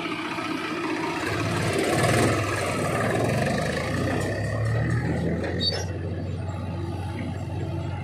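Diesel engine of a backhoe loader running under load as it works its hydraulic arm to dump soil, getting louder about one to two seconds in.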